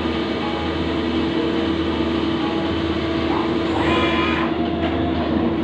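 CNC lathe running with a steady mechanical hum as the spindle turns a small bar workpiece. A brief higher whine comes about four seconds in, as the tool turret moves away from the part.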